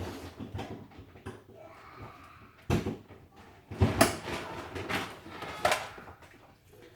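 Handling knocks and clunks, about three sharp ones, as the fridge freezer is reconnected to the power.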